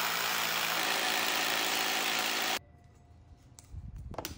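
Milwaukee M18 Fuel cordless rotary hammer drilling into a concrete floor through a steel bollard base plate, running steadily and then stopping abruptly about two and a half seconds in. A few soft knocks and clicks follow near the end.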